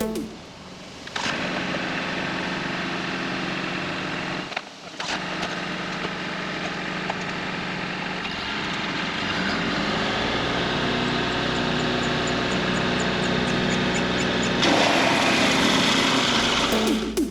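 Compact tractor's engine driving a PTO wood chipper, running steadily. The sound drops out briefly about a third of the way in and gets louder near the end.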